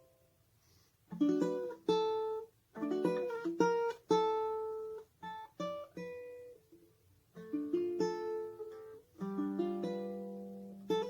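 Ukulele strumming chords in short phrases with brief pauses between them, the last chord left to ring.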